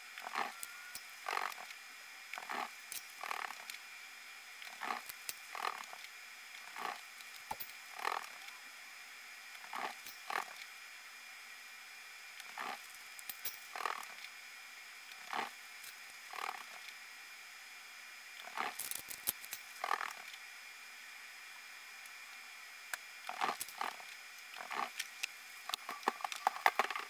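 Faint, irregular clacks and rattles of ceiling-fan blades being lifted off a wire shelving unit, roughly one a second, with a denser clatter about 19 seconds in and again near the end.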